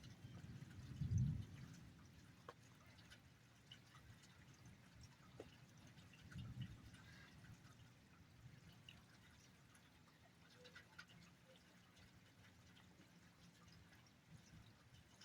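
Faint rain dripping and trickling, with scattered small drip ticks. Two brief low rumbles stand out, about a second in and again about six seconds in, the first the louder.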